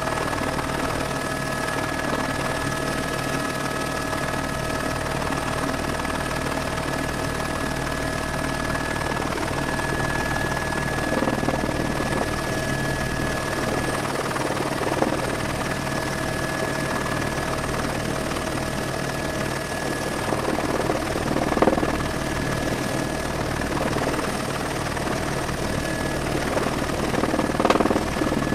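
Helicopter in flight heard from inside the cabin: a steady rumble of rotor and engine with several steady high whines running through it, and a few brief louder bumps near the middle and near the end.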